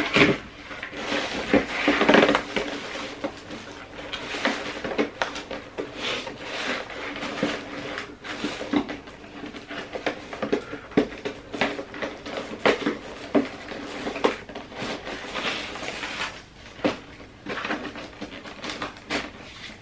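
Tissue paper rustling and crinkling and a cardboard gift box being handled, with irregular light knocks and taps as the box is folded and packed.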